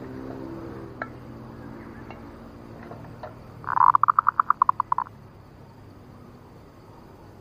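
Zebra dove (perkutut) calls: a low cooing fades out in the first second, then about three and a half seconds in comes a loud, rapid trill of about a dozen pulsed notes lasting just over a second. The calls are a female zebra dove's lure call.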